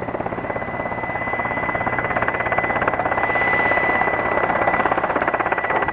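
Mi-8T helicopter's twin-turboshaft engines and main rotor during a landing approach: a fast, even beat of rotor blades with a steady high whine over it, growing a little louder about halfway through as it comes closer.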